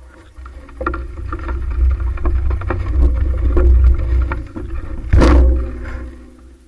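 Heavy wind rumble on the microphone with many rattling clicks and knocks while riding a fixed-gear bicycle. It starts suddenly, is loudest about five seconds in, and fades near the end.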